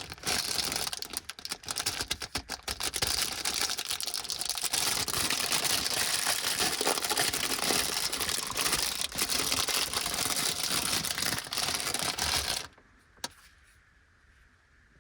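Plastic snack wrapper of a Melonpanna milk melon stick pack crinkling and rustling with many small crackles as it is handled and opened. It stops abruptly near the end, followed by a single faint click.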